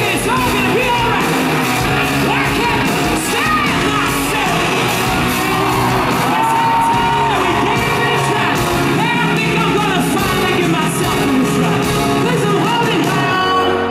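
Live pop-rock band playing loudly, with a male lead vocal singing over drums and electric guitar.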